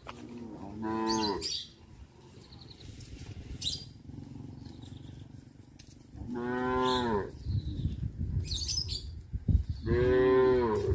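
Cows mooing: three drawn-out moos, one about a second in, one after about six seconds and one near the end.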